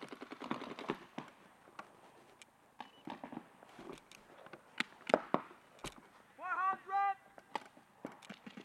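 Paintball markers firing: a rapid string of shots in the first second, then scattered single shots, the loudest about five seconds in. A brief shout comes through near two-thirds of the way.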